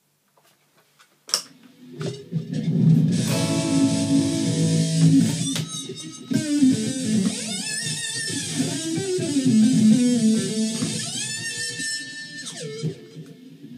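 Electric guitar, a Fender Stratocaster with humbuckers, played through a Roland Micro Cube amplifier. A click comes about a second in, then a played phrase with string bends, ending in a slide down in pitch near the end.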